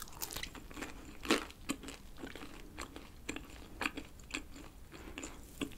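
A person biting into and chewing the crust edge of a thin black-rice-dough pizza: a string of small crisp crunches, the loudest about a second in.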